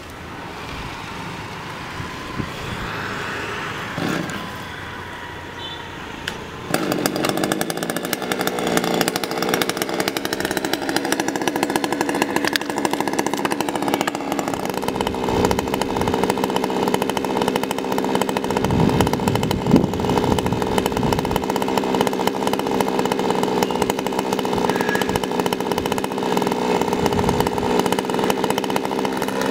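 A chainsaw engine running steadily high up a coconut palm trunk; after a quieter opening stretch it comes in loud and even about seven seconds in and holds a steady pitch.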